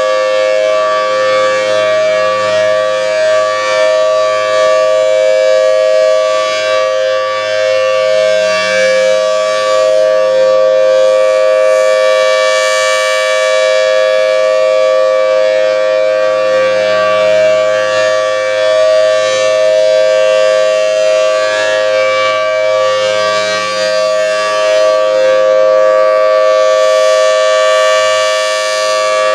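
Federal Signal Thunderbolt civil defense siren sounding a steady alert tone: a loud, held two-note chord. The sound swells brighter as the rotating horn turns toward the listener, about twelve seconds in and again near the end.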